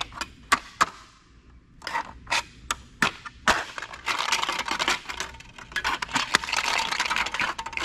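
A computer's CD drive being pried open by hand to get at the disc: a scattering of sharp plastic clicks and knocks, then from about four seconds in a dense run of scraping and rattling clicks.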